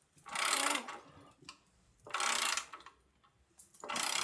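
Hand ratchet clicking in three short strokes, about two seconds apart, as a bolt is run in.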